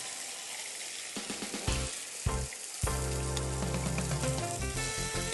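Marinated pork loin sizzling as pieces are laid into hot oil in a frying pan, with a few dull knocks between about one and three seconds in.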